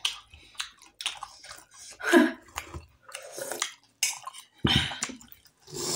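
Close-up eating sounds: soup slurped from a spoon, chewing, and a metal spoon clinking against a steel bowl, in short irregular bursts.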